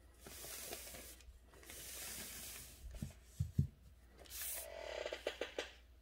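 Calligraphy brush swishing across paper in two soft strokes, then a few dull knocks, then a longer swish with light clicks.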